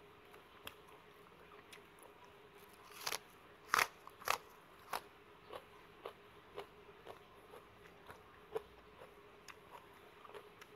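Close mouth sounds of a person biting into crunchy raw red onion: a few loud crunches about three to four seconds in, then steady chewing at about two chews a second.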